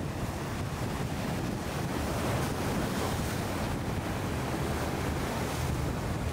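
Van Dutch 55 motor yacht running at speed through choppy inlet water: the rush of its hull wash and the surf, with a low engine drone underneath and wind buffeting the microphone.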